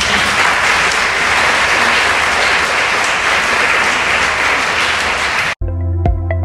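Audience applauding, a dense steady clapping that is cut off abruptly about five and a half seconds in, when ambient synthesizer music with plucked notes begins.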